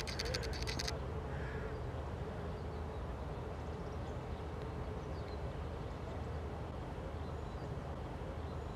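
Outdoor bird calls over a steady low rumble: a brief rapid chattering call in the first second, then a few faint scattered calls.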